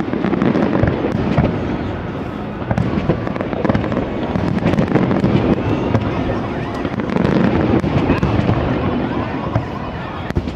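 Aerial fireworks display: a continuous run of shell bursts, low booms overlapping with many sharp cracks and crackle.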